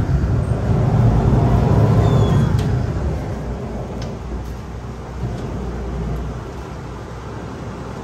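A heavy engine's low rumble, loud for about the first three seconds and then fading away, leaving a steadier, quieter background of traffic-like noise.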